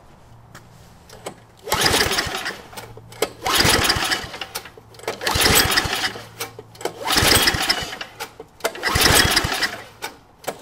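Small gasoline engine being pull-started with its recoil starter, five hard pulls about two seconds apart, each turning the engine over briefly without it catching. It won't fire because the fuel valve is still off and no gas has reached the carburetor bowl.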